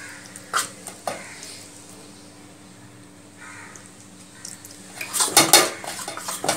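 A metal spoon stirring and scraping flour and water into batter in a stainless steel bowl. Two light clinks come in the first second, then a quiet stretch, then a flurry of scraping and clinking against the bowl from about five seconds in. A faint steady hum runs underneath.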